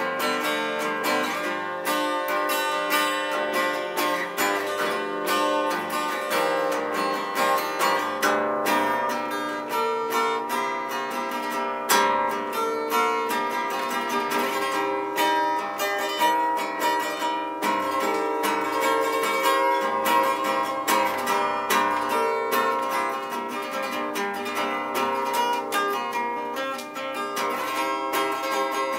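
Guitar played solo: a steady stream of picked notes ringing over one another.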